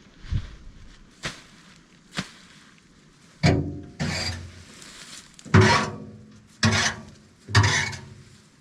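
A series of irregular knocks and scrapes, about one a second, with louder ringing thuds in the second half, typical of brush and wood being handled against a metal tractor box.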